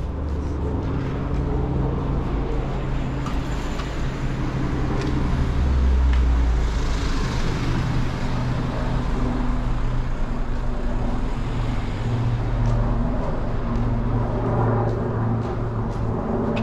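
Street traffic: nearby car engines running as a steady low hum. It swells louder around the middle, as of a vehicle passing close by.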